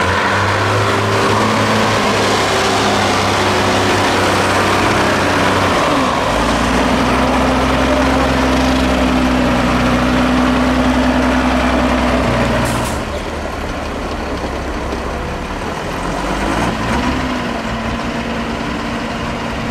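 Diesel engine of a 6x6 Mercedes-Benz trial truck running steadily under load over rough ground. Its pitch shifts about six seconds in. About thirteen seconds in there is a short click, and the engine drops back to a lower, quieter run.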